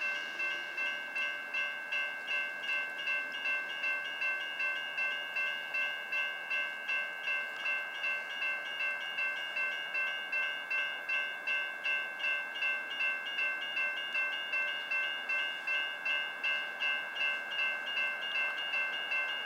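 Railroad grade-crossing bell ringing steadily at about two strikes a second, the warning that a train is approaching the crossing.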